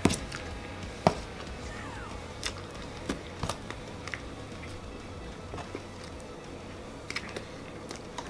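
Spoon clicking and scraping against a foil-lined baking pan while a soft pudding-and-cookie 'dirt' dessert is scooped out and eaten, a few sharp taps spread through.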